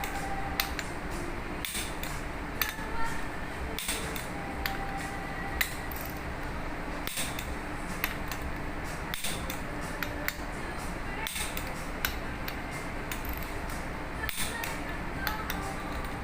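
Scattered metallic clicks and creaks from a torque wrench working the fuel pump's fixing bolts up to final torque, over a steady background hum.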